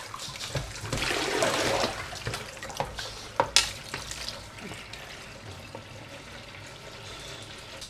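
Kitchen tap running, the stream splashing onto a piece of glass and into a tin in the sink basin, heaviest in the first two seconds. A few sharp knocks stand out around three and a half seconds in.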